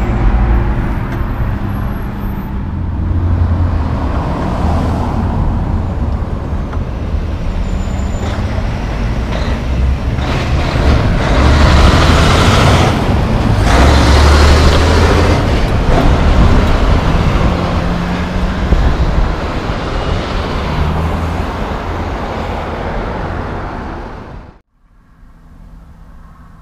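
Semi-trucks driving past at close range: low diesel engine hum and tyre roar, loudest as a tractor-trailer passes close by about halfway through. Near the end the traffic sound cuts off suddenly, leaving a much quieter steady hum.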